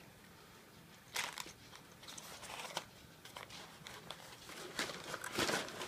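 Plastic wrapping crinkling and rustling in short spells as it is handled and pulled off a small electronic controller, the loudest rustles about a second in and near the end.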